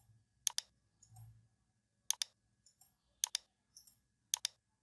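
Computer mouse button clicking, a single click about every second, the later ones in quick pairs. The clicks set the endpoints of lines being drawn.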